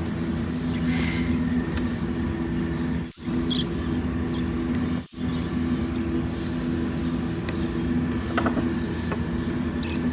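A steady low machine hum of several fixed tones, with a few faint clicks; the sound cuts out abruptly twice, for a moment each time.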